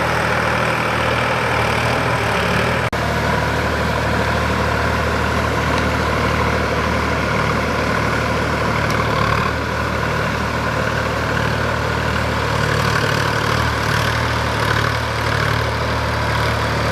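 Sonalika DI 745 III tractor's three-cylinder diesel engine running steadily, with a brief dropout about three seconds in.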